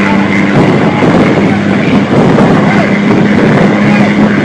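Caterpillar 3406 diesel engine of an International 9900 semi running at highway speed, heard from inside the cab: a loud, steady drone at an even pitch over road noise.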